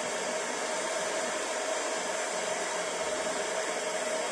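General-purpose handheld heat gun blowing hot air steadily over a circuit-board chip to reheat its solder: an even rush of air with a steady mid-pitched whine from its fan motor.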